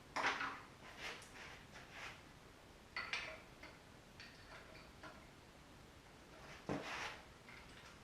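Metal tools and engine parts clinking and knocking as an engine is worked on, in scattered separate knocks, some with a brief metallic ring. The loudest knocks come just after the start and again about seven seconds in.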